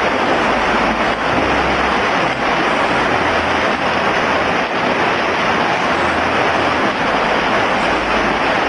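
Steady, loud wash of splashing water from swimmers doing laps in an indoor pool.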